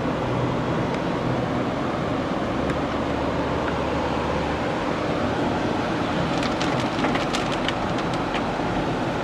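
Car driving on a wet highway: steady road and tyre noise heard inside the cabin, with a quick run of sharp ticks about six seconds in.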